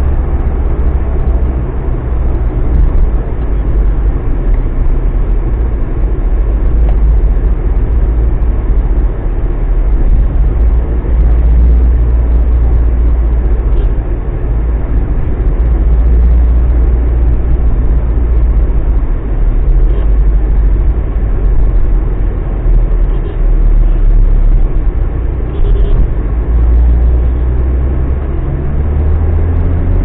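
Tata Safari's turbo-diesel engine running under way in stop-and-go city traffic, a steady low rumble that swells and eases a little with throttle, heard from inside the cabin along with road noise.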